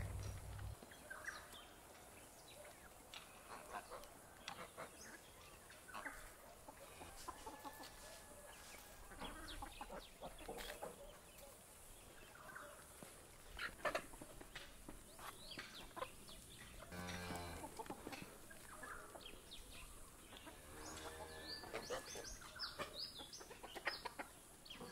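Chickens clucking faintly, with scattered short calls throughout and a couple of longer pulsing calls in the second half.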